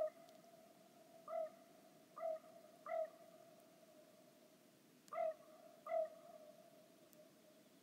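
Thin, thawing lake ice flexing under a light breeze, giving six short pitched yelps at uneven intervals over a faint, steady ringing tone.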